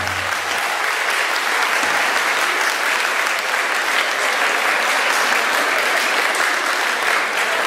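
Steady applause from a large seated audience of schoolchildren and adults clapping.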